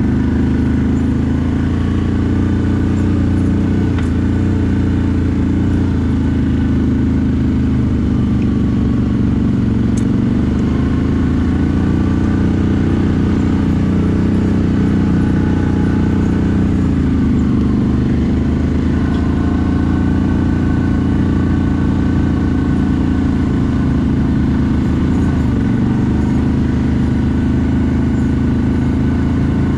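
CFMoto 1000 ATV's V-twin engine running steadily at a modest, even speed while riding, its pitch sagging and recovering slightly a few times.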